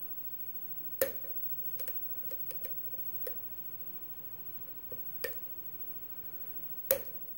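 Sharp, irregular clicks of a hook pick and tension wrench working the pin stack of an Ilco brass lock cylinder fitted with spool pins, as pins set and drop under the pick. About ten clicks, the loudest about a second in and near the end.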